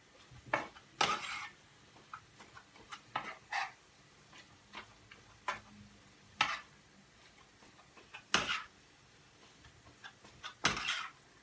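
A utensil scraping and knocking against a frying pan at irregular intervals, about a dozen strikes, as minced meat is stirred and broken up in the pan so it cooks loose rather than in lumps.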